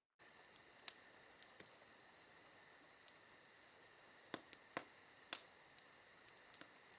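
Faint, steady chorus of crickets chirping, with a few scattered sharp clicks.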